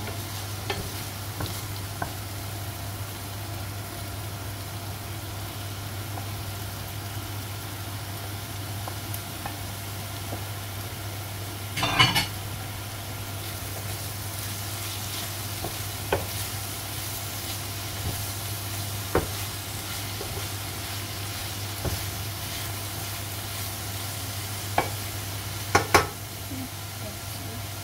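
Vegetables sizzling in a frying pan while a wooden spatula stirs them, scraping and knocking against the pan now and then, loudest about twelve seconds in and again a couple of seconds before the end. A steady low hum runs underneath.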